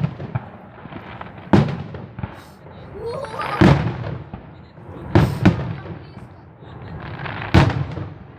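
Aerial firework shells bursting in a display: five loud bangs about two seconds apart, two of them in quick succession near the middle, each followed by a trailing crackle.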